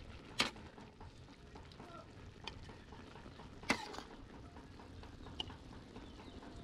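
Metal spatula scraping and clinking against a large metal wok while a saucy stir-fry is stirred and scooped out, with two sharp clanks, about half a second in and near four seconds, and a few lighter taps. A low sizzle from the wok runs underneath.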